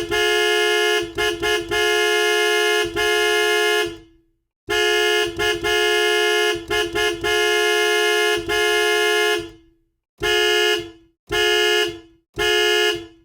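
A dual-tone horn, like a car horn, blaring two notes together in a pattern: a long blast of about four seconds broken by a few quick interruptions, a second long blast of about five seconds, then three short blasts. The gaps between blasts are dead silent.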